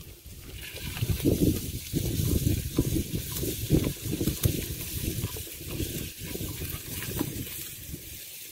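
Chopped lemongrass and garlic sizzling as they fry in hot oil in a pan, the sizzle starting about half a second in, over the low rumble of wind on the microphone.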